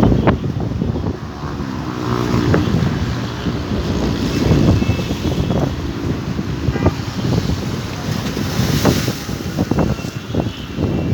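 Wind buffeting the microphone in gusts over the sound of sea waves washing against the shore.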